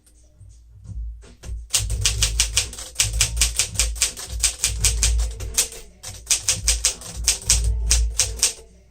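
Smith-Corona Silent-Super manual typewriter being typed on at a brisk, steady pace: a fast run of key clacks, about six a second, sparse at first and then continuous from about two seconds in, with a brief lull near the end.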